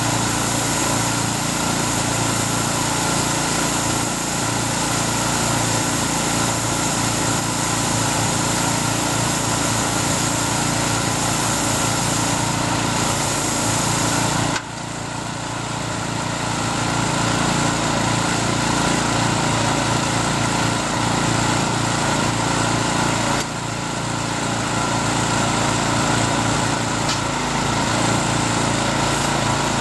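The small engine of a Takakita SW1100W crawler bale wrapper runs steadily as the machine turns a round bale of rice silage and wraps it in stretch film. The sound drops suddenly about halfway through and again about two-thirds through, then builds back up each time.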